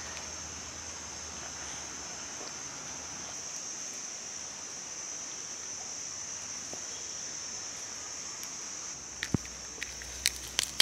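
A steady high-pitched insect drone. In the last two seconds, a few sharp cracks as garlic cloves are crushed under the flat of a knife blade.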